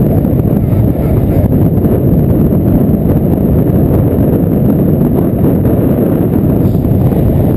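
Loud, steady wind buffeting the microphone of a camera on a paraglider harness in flight: a low rumbling rush with no breaks.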